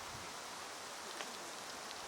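Steady outdoor background hiss with no bird calling, broken by two faint ticks, one about a second in and one near the end.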